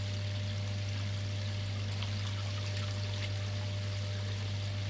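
Koi pond water running and trickling steadily over a constant low hum, with light splashes as a net is worked through the water.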